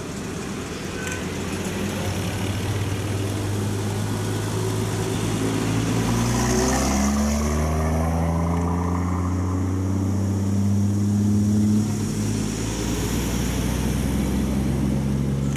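Old military vehicles driving past one after another: an army jeep, then a heavy army truck whose engine is loudest about halfway through, its note dropping as it goes by. A steadier engine hum from following cars comes after it.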